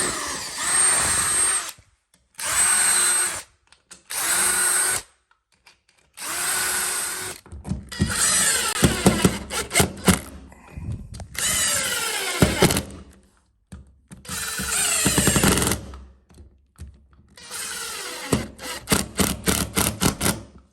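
Hand-held power tool run in about eight bursts with short pauses, its motor whining up to speed and winding down each time, with a fast rattle of clicks in the last burst near the end. It is working the wooden door and bead to fit a nightlatch.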